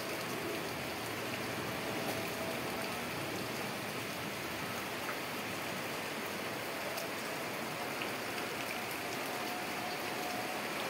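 Steady rain falling, an even hiss of drops on water and the surroundings.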